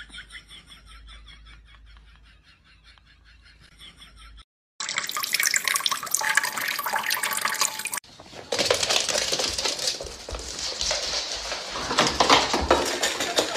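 Water running from a kitchen faucet and splashing onto a cat's head, a steady hiss that begins abruptly about five seconds in. After a sudden cut, a louder stretch of hiss with many sharp ticks follows.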